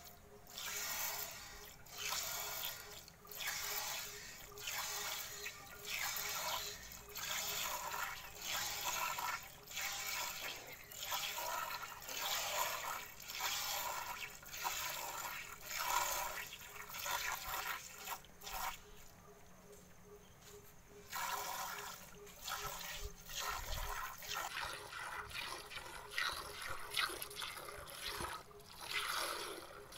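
Milk squirting from a cow's teats into a steel bucket during hand milking, a hissing splash about once a second with a short pause around the middle.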